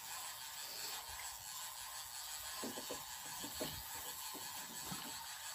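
Quiet outdoor river ambience: a steady faint high hiss, with a few soft knocks and rubs in the middle, from about two and a half to four and a half seconds in.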